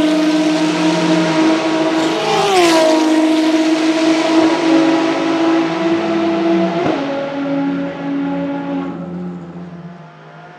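Ferrari XX-programme race car's V12 at full throttle on a wet track, the pitch dropping sharply at an upshift about two seconds in, then holding a steady note, with another sharp shift near seven seconds in. A hiss of tyre spray runs under it, and the sound fades near the end as the car pulls away.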